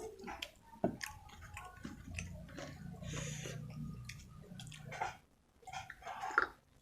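Close-miked wet chewing and mouth smacks of someone eating rice with spicy chicken curry, gravy and cauliflower-potato sabji, in short irregular clicks.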